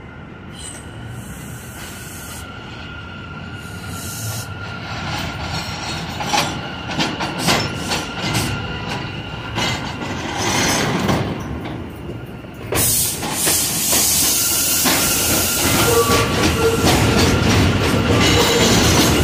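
New York City subway train on an elevated line, growing louder as it approaches, its wheels clattering over the rail joints. About two-thirds of the way in, the noise jumps to a loud, steady rush of train noise that lasts to the end.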